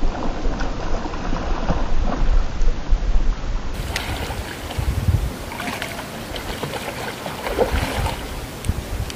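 Water splashing and sloshing as a hooked fish thrashes at the surface while it is played on a rod, with wind buffeting the microphone.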